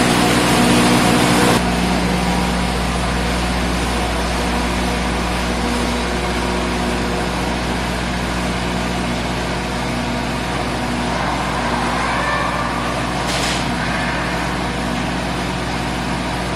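Dredger's generator set running steadily: a constant engine drone with a steady low hum. The sound changes abruptly and drops slightly about a second and a half in.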